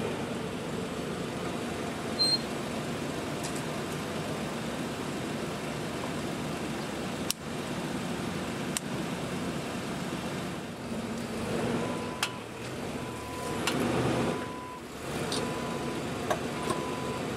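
Car engine running as the car reverses slowly. From about two-thirds of the way through comes a series of short, evenly pitched electronic beeps, with a few sharp clicks scattered earlier.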